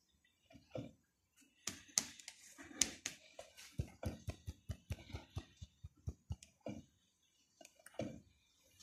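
Hands rubbing and patting oiled corn couscous (badaz) grains in an earthenware dish: soft rustling and dry pats of the grains against palms and the dish, with a quick run of short pats, several a second, in the middle.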